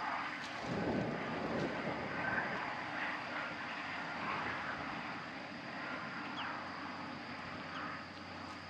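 Strong wind blowing over the microphone: a continuous noise that swells about a second in.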